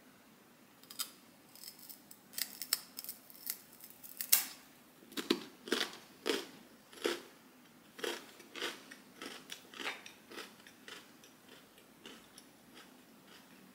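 Close-up crunching of a dry seeded crispbread being bitten and chewed: a quick run of sharp, crisp crunches that is loudest in the middle and thins out near the end.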